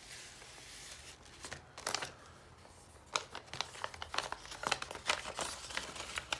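Packaging crinkling and rustling as a package is opened by hand, with scattered light clicks and a short tearing rasp about two seconds in.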